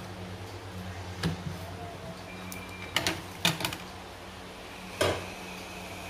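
Screwdriver clicking and tapping on the SSD bracket screws of the laptop: a single click about a second in, a quick cluster of four around the middle, and one more near the end, over a steady low hum.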